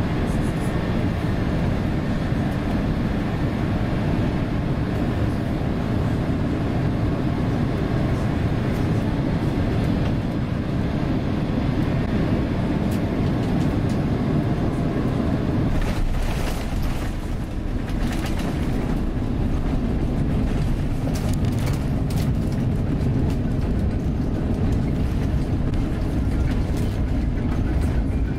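Airbus A350-900 cabin noise on final approach: a steady rush of airflow and engines. About sixteen seconds in the level dips briefly and a few knocks come as the wheels touch down, followed by the heavier rumble of the landing rollout.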